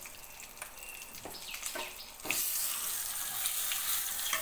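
Tempering sizzling in hot oil in a metal kadai: mustard seeds, curry leaves and spices with fresh turmeric, crackling with fine ticks. About two seconds in the sizzle jumps suddenly louder into a steady hiss as a ladle stirs the pan.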